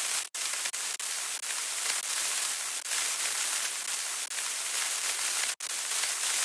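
Static glitch sound effect: a steady, even hiss of noise that cuts out for an instant twice, once just after the start and once near the end.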